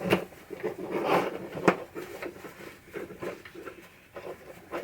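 Irregular rubbing and rustling of a rag being wiped along the wiring harness of a pinball drop target assembly, with two sharp clicks, one right at the start and one under two seconds in.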